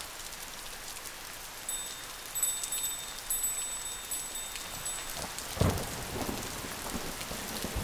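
Heavy rain falling steadily. From about two to five seconds in there are high, thin chiming tones, and about five and a half seconds in a low rumble of thunder comes in.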